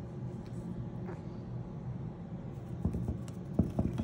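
A cat pawing at papers and a spiral notebook: light paper rustling and a few soft taps, most of them about three seconds in, over a steady low hum.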